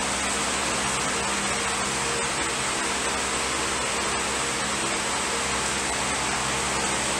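Steady, even hiss with a low hum and faint steady tones from running room machinery, with a few faint crunches as a dry puffed cereal piece is chewed.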